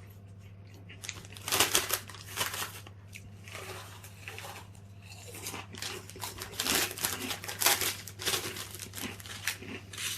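Crisp packet crinkling and rustling in irregular bursts as it is handled.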